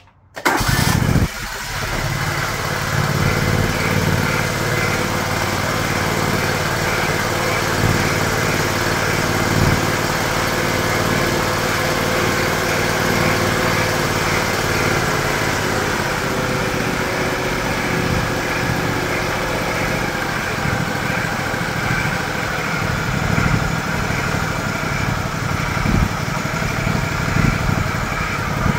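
John Deere LX178 riding mower engine running steadily on a freshly installed carburetor while its idle speed screw is turned to slow it down. The engine note shifts slightly about halfway through.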